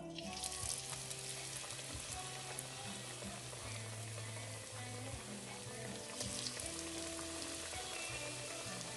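Battered banana pieces frying in hot oil on their second fry: a steady sizzle that sets in suddenly at the start and holds throughout.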